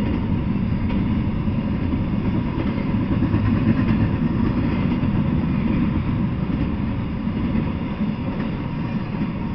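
Intermodal freight train passing: double-stack container well cars and a trailer on a flatcar rolling by, a steady low rumble of steel wheels on rail.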